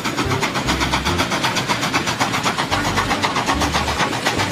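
An engine-like running sound: a steady, fast rhythmic chugging with low thumps underneath.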